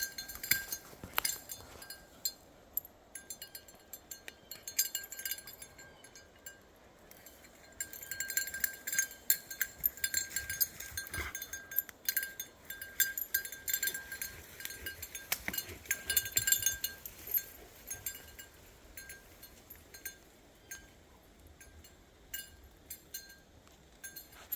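Spoon clicking and clinking against a food container while eating, many small sharp clicks in irregular quick succession, busiest around the middle.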